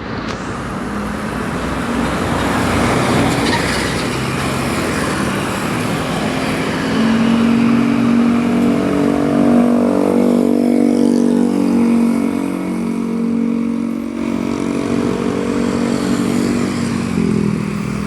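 Basuri 'telolet' multi-tone bus air horn playing a long run of changing musical notes, from about seven seconds until near the end, over vehicle engine and traffic noise that fills the first few seconds.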